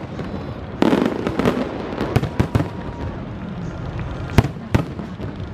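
Fireworks display: a run of sharp bangs, with a dense crackling burst about a second in and several loud single reports later.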